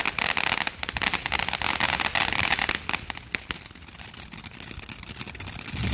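Ground fountain firework spraying sparks with a dense crackling hiss. It dies down to scattered crackles about three seconds in.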